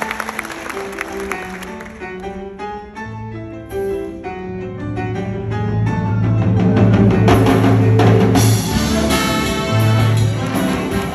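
Live school jazz band playing a Latin mambo chart, with a line of short, separate notes over bass and drums. The full band comes in louder about six seconds in.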